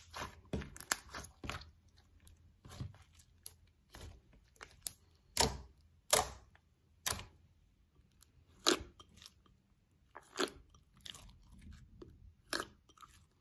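Thick white Elmer's glue slime being squeezed, stretched and poked by hand, giving irregular sticky clicks and pops, with a handful of louder pops standing out.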